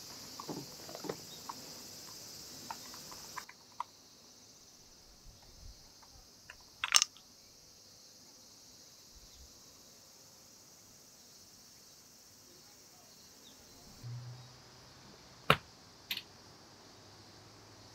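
Quiet handling noise: scattered light ticks and knocks, with one sharp click about seven seconds in and two more near the end, over a faint steady hiss.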